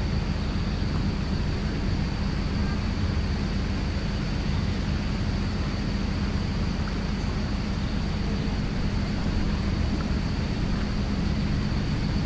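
Wind buffeting an unshielded camera microphone: a steady low rumble that flickers without a break, with a thin steady high tone running through it.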